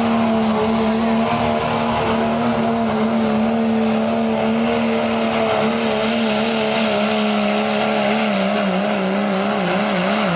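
Turbocharged diesel engine of a Dodge Ram pulling truck running at high revs under full load as it drags the pulling sled. The note holds nearly steady and sags slightly, then wavers up and down near the end as the revs fluctuate.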